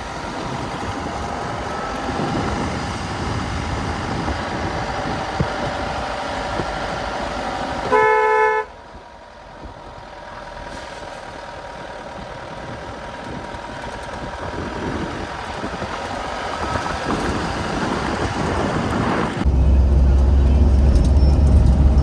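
Vehicle driving with steady engine and road noise, and one short horn honk about eight seconds in. The noise drops just after the honk and then builds gradually, and a heavy low rumble comes in near the end.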